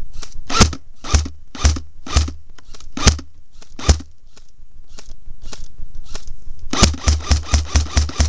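Airsoft gun shots: single sharp cracks about half a second apart, some fainter than others. From near the end they turn into a fast, even string of about five or six shots a second.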